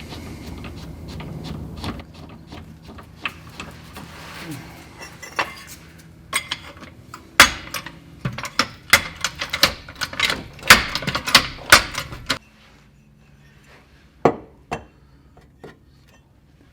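Metal tools clanking and knocking on car parts while a mount is worked loose: a quick run of sharp metallic knocks and clinks through the middle, then two more knocks after a short break.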